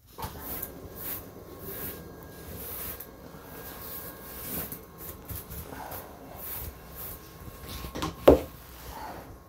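A scrub brush rubbing and sweeping loose dog hair off a tiled tub ledge, with a towel rustling close by. A single sharp knock comes about eight seconds in.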